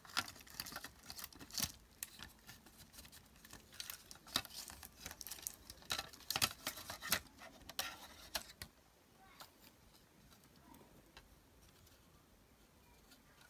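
Clicks, taps and rustling of hard plastic as a monitor's main circuit board is worked out of its black plastic holder. The handling noise stops about two-thirds of the way through, leaving only faint room tone.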